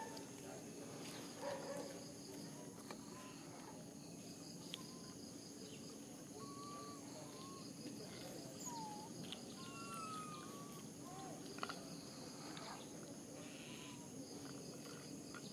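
Outdoor insect chorus: a steady high buzz with trains of quick, even chirps. Scattered short whistled calls rise and fall over it.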